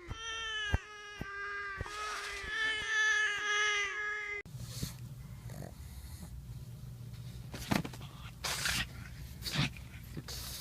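A song built from cat meows over a steady beat, with repeated gliding meow-like notes, cutting off suddenly about four seconds in. After it comes a steady low hum with a few short, noisy sounds.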